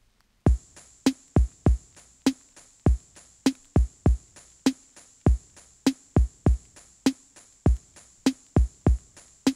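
Background music: a drum-machine beat of sharp kick-drum hits in a repeating, syncopated pattern, about two to three a second, with no melody. It starts about half a second in, after a brief gap.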